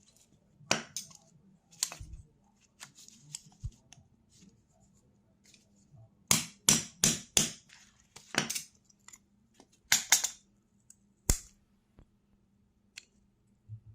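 Small parts of a disassembled evap canister purge valve being handled: scattered clicks and taps, with a quick run of four or five sharper knocks about halfway through and a few more after.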